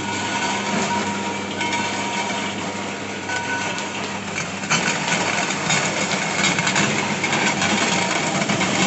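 Electric-motor-driven clay roller crusher running with a steady hum. About halfway through, wet clay fed into the hopper passes between the rollers and the sound grows louder and rougher, with crackling as stones and grit in the clay are ground up.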